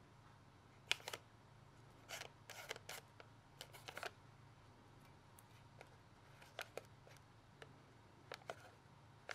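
Faint, scattered scratches and taps of a marker pen writing on the tops of cardboard firework tubes, with hands handling the tubes, in short groups over a low steady hum.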